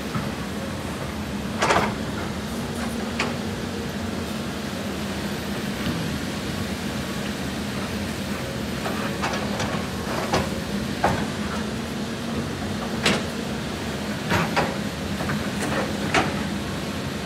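CAT 320D hydraulic excavator's diesel engine running steadily under load, with sharp knocks and clanks scattered through, from the bucket striking and scraping rock as it digs into the rocky slope.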